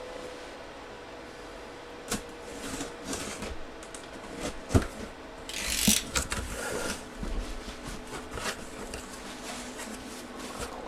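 A cardboard box being opened and its packaging handled: scattered knocks and clicks, a sharper knock about five seconds in, then a short rustling tear just after.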